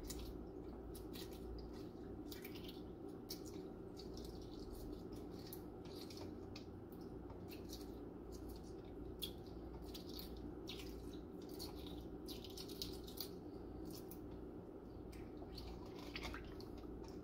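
Hard-boiled eggs, already cracked and soaked in cold water, being peeled by hand in a stainless steel bowl: irregular small crackles of shell coming away, with light drips and splashes of water.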